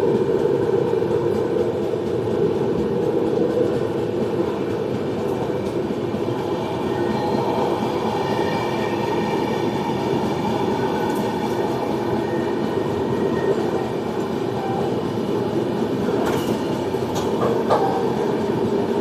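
Passenger train running on the track: a steady rumble of wheels on rails, with a faint high squeal in the middle and a couple of sharp clacks near the end.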